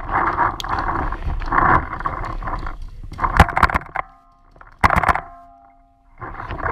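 Paintball game heard through a helmet camera's muffled microphone: rough rustling and wind noise, broken by two quick groups of sharp paintball shots, three about three and a half seconds in and three more near five seconds.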